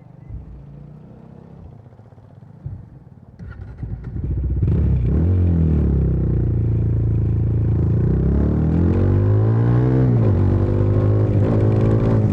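Bajaj Dominar 400's single-cylinder engine starting about three and a half seconds in, after a few quiet seconds with small clicks. It then runs loudly through the exhaust, its pitch rising and falling several times with the throttle.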